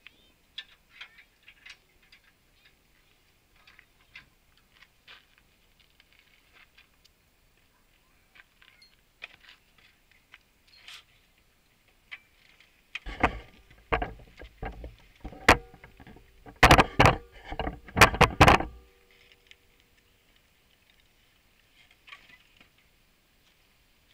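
Light metallic clicks and taps as steel hitch cargo rack parts are worked at a van's hitch receiver. About halfway through comes a run of loud, sharp metal clanks, some with a brief ringing tone, lasting about six seconds.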